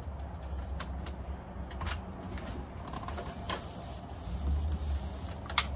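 Scattered clicks, knocks and creaks of things being handled, over a low rumble, with one sharper knock near the end.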